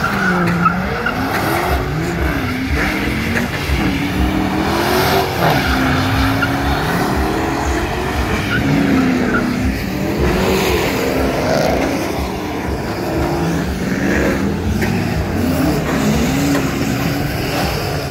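Car engines revving up and down over and over in a wavering drone, with tyres spinning and sliding on wet pavement as the cars drift and do donuts.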